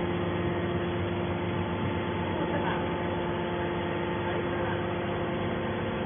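Hydraulic scrap-metal baler's power unit running, a steady mechanical hum with several fixed tones.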